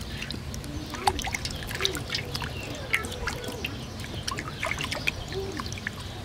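Hands washing rat carcasses in an aluminium basin of water: splashing and trickling, with many short, sharp drips and splashes scattered throughout.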